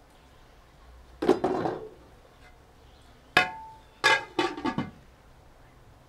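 A metal cooking pot and its lid clanking as the lid is handled and set on the pot: a clatter about a second in, then a sharp clang with a brief ringing tone, followed by a quick run of clinks.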